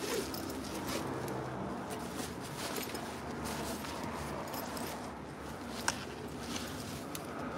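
Hands rummaging through a zippered fabric backpack: rustling fabric and small clicks of zips and contents being handled, with one sharper click about six seconds in.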